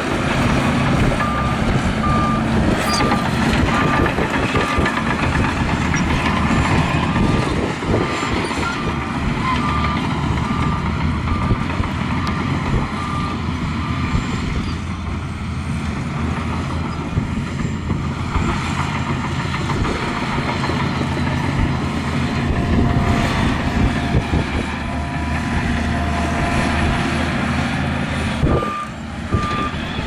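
Heavy earthmoving machinery running steadily, with a reversing alarm beeping in an even series. The beeping stops about halfway through and starts again near the end.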